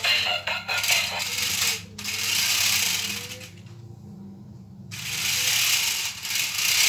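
Toy remote-control off-road car with sideways-driving wheels being driven: its small electric motors and plastic gearboxes whirring, with the wheels clattering on the tiles. It runs in spurts, with a pause about three and a half seconds in before it starts up again.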